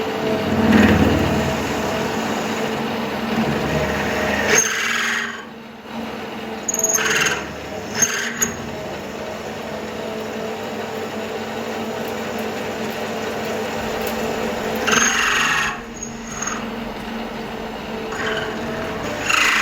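Bernardo Profi 550 WQV metal lathe running with a steady motor hum while turning steel, with short bursts of harsher cutting noise several times.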